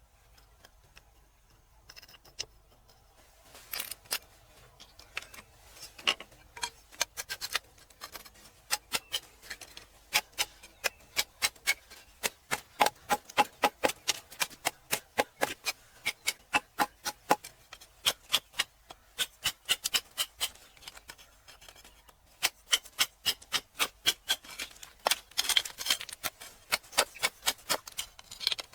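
A long series of sharp taps, about two to three a second, sparse at first and then steady from about four seconds in: a hard tool tapping against stone.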